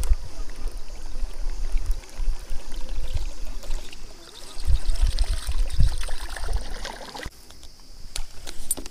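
Buzzbait being reeled across the water surface, its blade splashing along steadily over a low rumble; the splashing stops suddenly about seven seconds in, and a few sharp clicks follow near the end.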